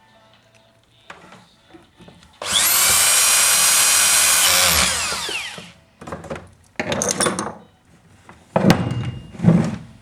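A handheld electric power tool's motor spins up suddenly, runs at a steady high whine for about two seconds, then winds down in pitch over about a second. After that come two short bursts of scraping and handling noise, with a sharp click.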